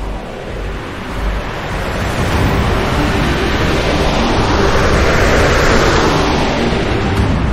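A rushing noise over a deep rumble, swelling gradually to its loudest about five to six seconds in and easing slightly near the end.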